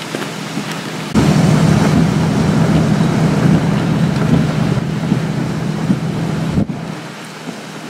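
Wind buffeting the microphone with a low, rumbling noise. It swells sharply about a second in and drops off suddenly near the end.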